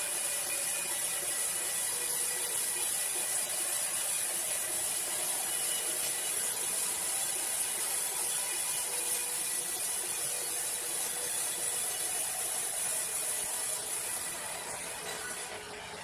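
Large band sawmill cutting through a big log: a steady high saw hiss over the machine's running noise. The hiss drops away about a second before the end.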